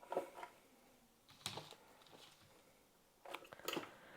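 Faint kitchen handling sounds while a blender jar is being loaded with ingredients: three short bursts of light clicks and knocks, one at the start, one about a second and a half in, and a cluster near the end.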